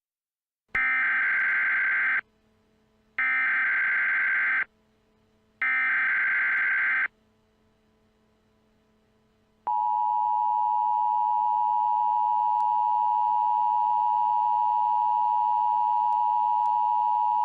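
Emergency Alert System tones: three bursts of SAME header data, each about a second and a half long with a short gap between them, then the steady two-tone attention signal held for about eight seconds before cutting off sharply.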